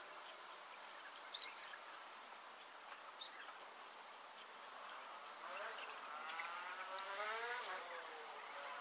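Fast-forwarded outdoor background sound: the speed-up turns the ambience into thin, squeaky chirping. A louder squeaky pitched sound rises and then falls in the second half.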